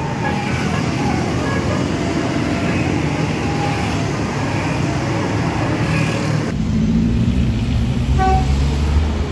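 Tour bus diesel engine running, with faint voices in the background. About two-thirds of the way through, the sound switches abruptly to a closer, deeper engine rumble.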